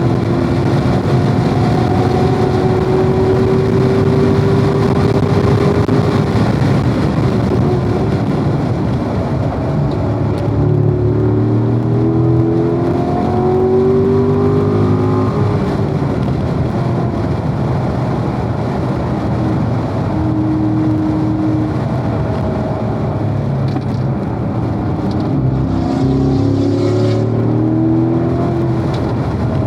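Corvette V8 engine under hard track driving, heard from on board: its pitch climbs steadily for the first several seconds, then drops and climbs again several times through the middle and near the end as the car shifts and brakes, over constant road and wind rumble.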